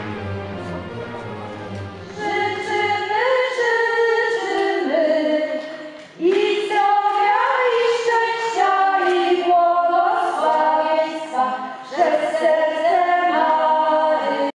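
Women's voices singing a song together, starting about two seconds in. The singing dips briefly near six seconds, then comes back in strongly and cuts off suddenly at the very end.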